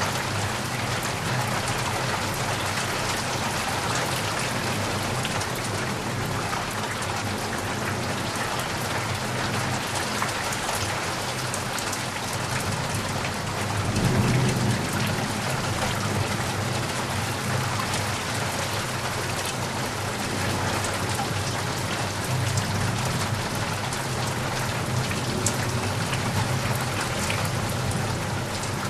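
Steady rain with drops tapping and pattering on a surface. A low rumble swells briefly about halfway through.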